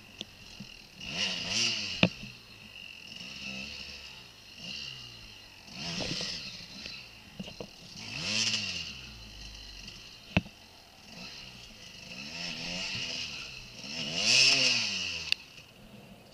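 Dirt bike engine revved in about five swells, each rising and falling in pitch, with a few sharp knocks in between. The bike is stuck in snow packed hard as stone, and the wheel won't drive it forward. The engine sound drops away near the end.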